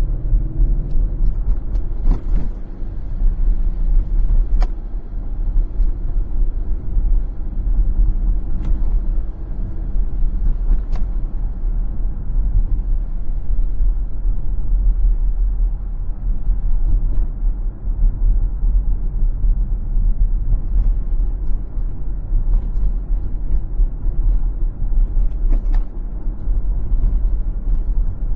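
A car driving on city streets: a steady heavy low rumble of road and tyre noise, with a faint engine hum over the first several seconds and a few short sharp clicks or knocks.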